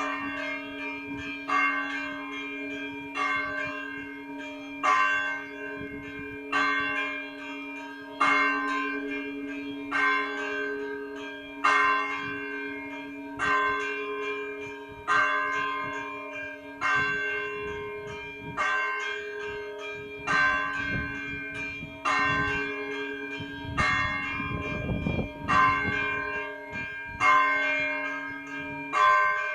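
A single Orthodox church bell tolled at an even pace, about one strike every second and a half, each stroke ringing on into the next: the call to a church service.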